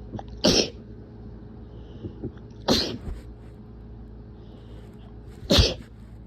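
Three strong sneezes from a person with a head cold, a couple of seconds apart, with short catching breaths building up before the second one.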